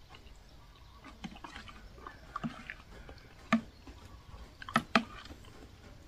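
A person eating curry with a spoon, chewing softly. A metal spoon clinks against the ceramic bowl about three times in the second half.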